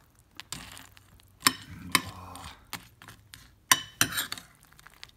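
Metal spoon stirring cereal in milk in a bowl, with a few sharp clinks of the spoon against the bowl.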